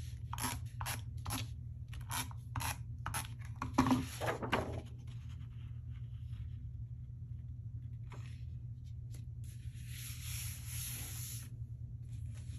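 A handheld tape runner is pushed across the back of a sheet of scrapbook paper in quick repeated strokes, each a short rasping click, for the first four and a half seconds or so. Near the end, paper is slid and rubbed flat by hand, a papery rub lasting about a second and a half.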